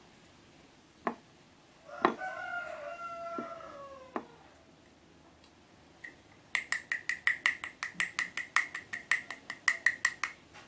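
A rooster crows once about two seconds in, a single call of about two seconds that drops in pitch at the end. Later comes a quick run of short, sharp, high chirps, about six a second, lasting about four seconds, with a few light clicks scattered through.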